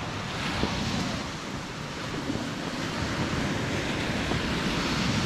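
Baltic Sea surf washing onto a sandy beach, the hiss of the waves swelling twice, with wind rumbling on the microphone.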